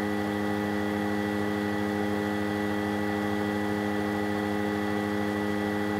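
Steady electrical hum made of several unchanging tones, with a hiss underneath.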